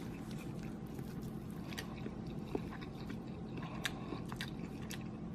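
Someone chewing and biting into crispy fried, breaded seafood, with a few sharp crunches spread through the moment over a low steady hum.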